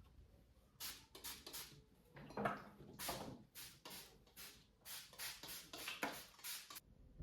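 Household objects being handled and set down: a quick, irregular series of light knocks and clicks, a few with a short ring like ceramic or glass touching.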